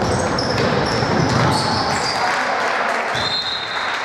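Sounds of a basketball game in a gym: a ball bouncing on the wooden court, sneakers squeaking in short high chirps, and voices from players and the sidelines echoing in the hall.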